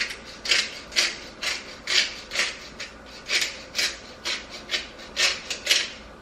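Pepper grinder being twisted over the pan, a dry rasping grind repeated about twice a second.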